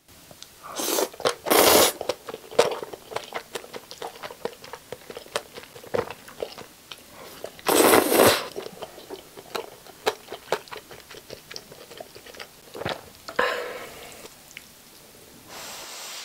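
Close-miked eating of jjajang instant noodles: noodles slurped in with short hissing sucks, twice about a second in, a longer one around eight seconds and another near thirteen seconds, with wet chewing and lip-smacking clicks in between.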